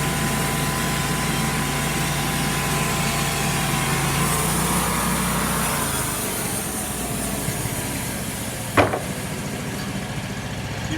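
Homemade sawmill running through a log, a steady machine sound; about halfway through the pitch slides down and the low end drops away as the run slows. A single sharp knock comes near the end.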